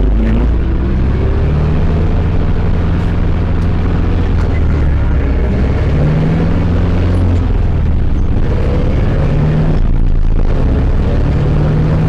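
Zetor 7011 tractor's four-cylinder diesel engine running as the tractor drives along a road, heard from inside the cab. The engine note climbs a few times and briefly drops away about ten seconds in.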